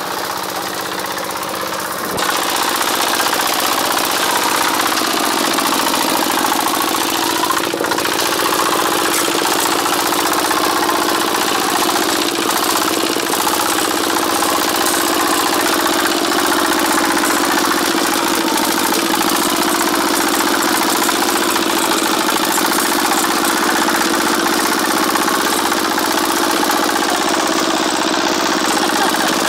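Single-cylinder diesel engine of a two-wheeled walking tractor running steadily while it drives a rotary tiller through soil. It gets louder about two seconds in.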